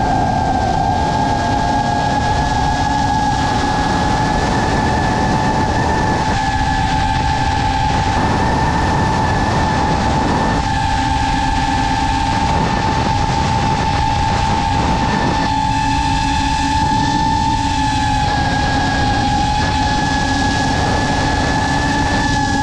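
FPV drone's brushless motors whining at a steady high pitch over the rush of propeller wash and wind, the pitch holding nearly level.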